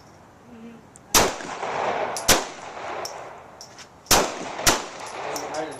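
Four gunshots in two pairs, each a sharp crack, with a metallic ringing after the first and third.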